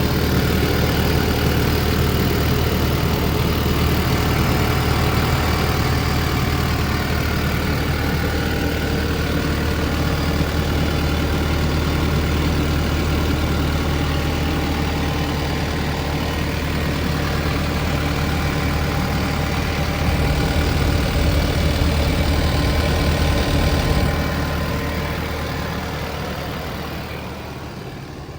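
Kubota SVL95-2S tracked skid steer's 87 hp diesel engine running steadily. It grows louder for a few seconds about twenty seconds in, then fades away over the last few seconds.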